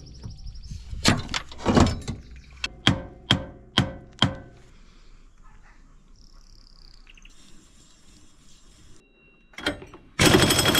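A run of sharp metallic knocks with short ringing, about ten over the first four and a half seconds, as parts of an ATV's rear CV axle are worked on. About ten seconds in, an impact wrench starts a loud, fast rattle on the wheel hub.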